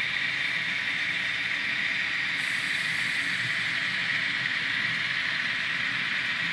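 Kato N scale model container train running along the track: a steady, even rolling hiss from the small wheels and motor.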